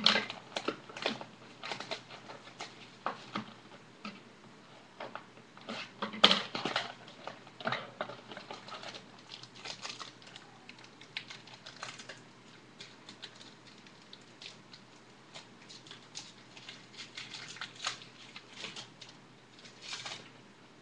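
Trading card packs and cards being handled and opened: irregular crinkling, rustling and light clicks, with louder crackles at the start, about six seconds in and near the end.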